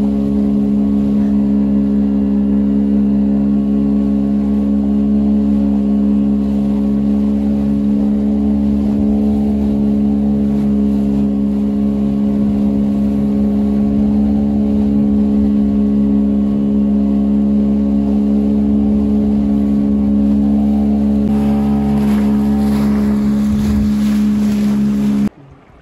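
A small boat's outboard motor running with a steady hum, with water rushing past the hull. It cuts off abruptly near the end, leaving faint wind and lapping water.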